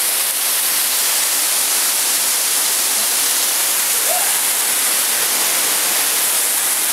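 A small waterfall cascading over rocks in a mountain stream: a steady, loud rush of falling water.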